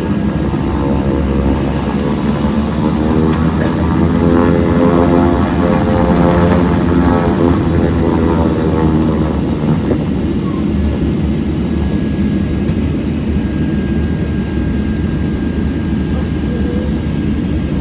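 Harbin Y-12E's turboprop engines and propellers droning, heard inside the cabin as the aircraft taxis on the runway. A tone swells, rising and then falling, between about two and ten seconds in, while a steady low drone carries on underneath.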